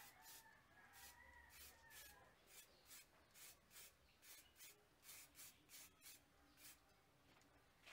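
Aerosol spray-paint can hissing in short, quick bursts, about two a second, faint.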